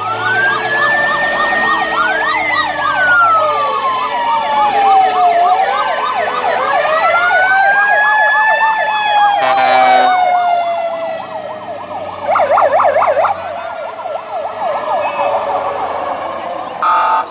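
Fire engine sirens sounding together as the trucks drive past: overlapping fast yelping sweeps and slow rising and falling wails. A short horn blast comes about ten seconds in.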